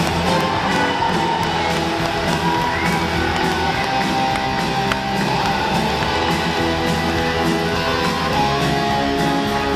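Music with guitar and a steady beat, accompanying a stage dance routine.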